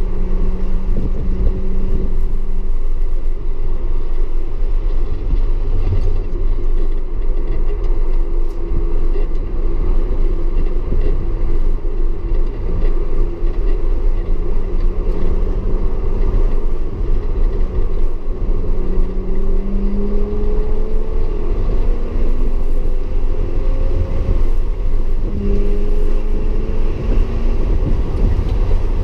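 Audi S4 engine running hard on track over a heavy, steady rumble, its pitch climbing several times as the car accelerates, most clearly in the second half.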